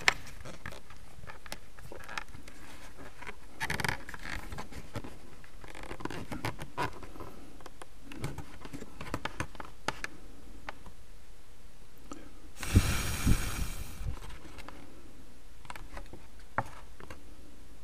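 Handling noise of a wooden block and a battery box lid being held and shifted: scattered small clicks and rubs, with one louder scrape lasting about a second roughly two-thirds of the way through, over a faint steady hum.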